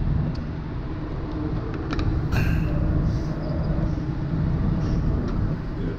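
Steady low rumble and hum of a car ferry's machinery on the enclosed car deck. A few sharp clicks come just before two seconds in, and a brief hiss with a tone follows about half a second later.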